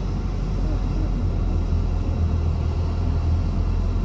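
Steady low engine and road rumble heard from inside a car's cabin while following a heavy lorry, with no distinct events.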